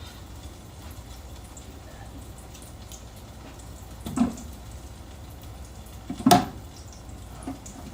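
Hot oil bubbling and crackling steadily as Korean corn dogs deep-fry, with two short louder noises about four and six seconds in.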